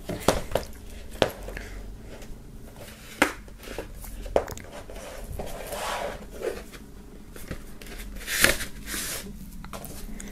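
Plastic shrink wrap crinkling and a cardboard LP jacket sliding and knocking as its contents are pulled out of the slit wrapping. Scattered sharp clicks and short rustles, the loudest rustle just over eight seconds in.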